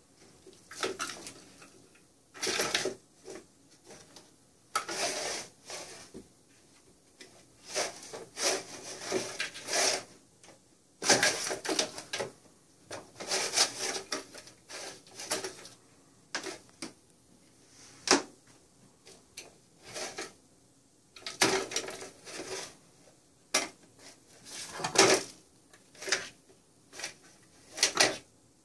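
Plastic circular-track cat toy clattering as a cat bats the mouse piece around inside its track: irregular bursts of rattling clicks, each up to about two seconds long, with short pauses between.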